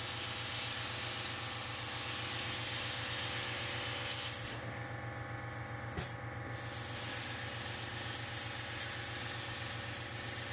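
CNC plasma cutter torch cutting steel plate: a steady hiss from the arc over a low hum. About halfway through, the hiss stops for a second or so between cuts, then comes back after a sharp click.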